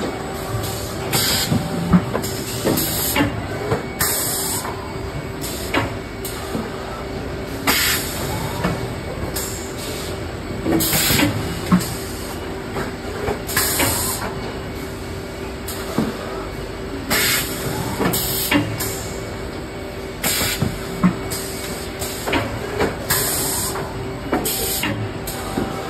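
Automatic corrugated-cardboard palletizing line running: a steady machine hum, with repeated short hisses of compressed air from its pneumatic cylinders and gripper at irregular intervals of one to a few seconds.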